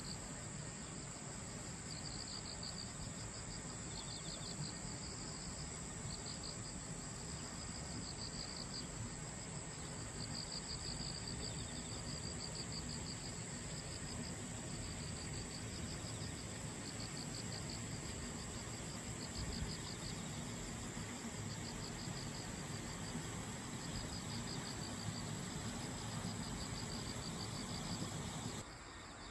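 Insects trilling in tall grass: repeated high, pulsed trills about a second long with short gaps between them, over a steady high-pitched shrill that cuts off near the end, with a low rumble underneath.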